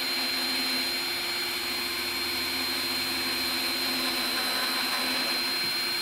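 Cordless drill running steadily with a 1/2-inch spade bit boring through the plastic wall of a cooler, a steady high whine over the motor's hum.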